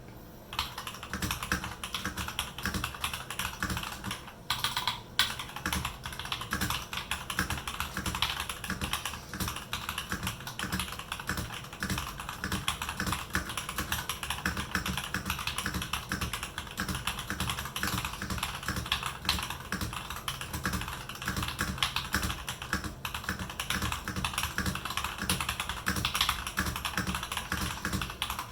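Fast, continuous typing on a TM980 98-key custom mechanical keyboard fitted with JWK Yellow switches: a steady stream of key clacks with a brief pause about four seconds in.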